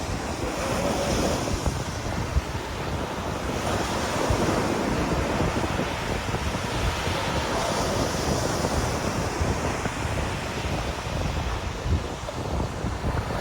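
Ocean surf washing in, its hiss swelling and fading every few seconds, with wind buffeting the microphone.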